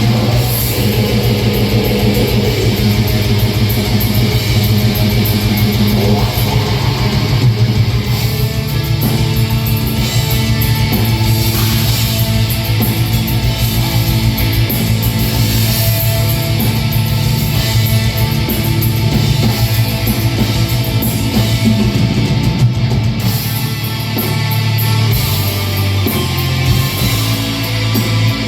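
Black metal band playing live: distorted electric guitars holding long low notes over fast, continuous drumming.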